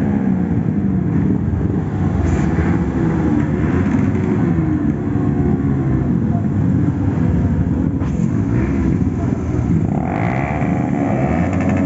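Many motorcycle engines running together as a group of bikes rolls past, their notes rising and falling with throttle. A louder rising rev comes near the end.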